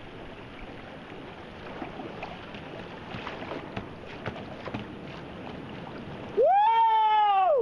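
Whitewater rushing around a kayak, with small splashes against the hull. About six and a half seconds in, a paddler gives a loud, high whoop that rises, holds for about a second and drops away.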